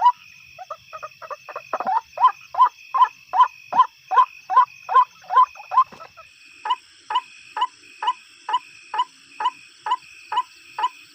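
White-breasted waterhen (ruwak-ruwak) calling: a long series of evenly repeated croaking notes, about two to three a second, settling into a steadier, slightly slower rhythm about halfway through.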